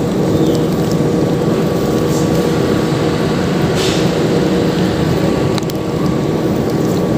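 Steady hum of a running engine, unchanging in pitch and level.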